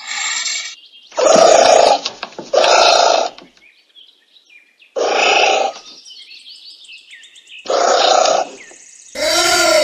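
Anteater calls: a series of short, harsh, noisy cries, each under a second long and one to three seconds apart, the last one longer with a wavering pitch. Faint bird-like chirps sound in the gaps.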